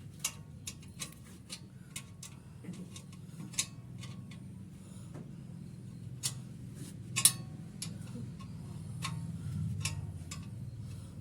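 Irregular sharp clicks and taps of metal tools and parts being handled during motorcycle work, with one louder click about seven seconds in, over a low steady hum.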